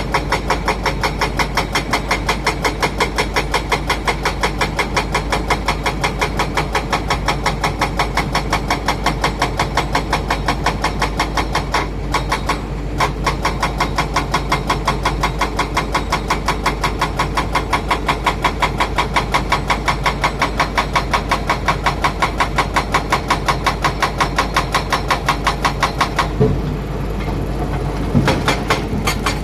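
Heavy diesel engine running steadily with a fast, even pulse. Late on, the sound changes briefly and there are a couple of low knocks.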